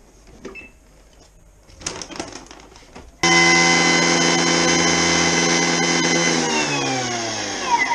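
A few clicks as the lid is locked and the speed dial turned, then about three seconds in a Thermomix food processor's blade motor starts abruptly at high speed, a loud steady whine as it grinds dry cat food to powder. Near the end its pitch falls as it winds down.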